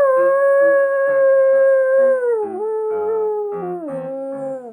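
One long howl, held steady, then dropping in pitch in steps from about two and a half seconds in, with shorter, lower howling notes underneath.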